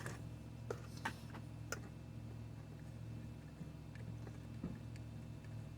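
Scattered small clicks and taps of soldering tools on the metal of a TV tuner's coaxial connector, a few close together near the start and a few more near the end, over a steady low hum.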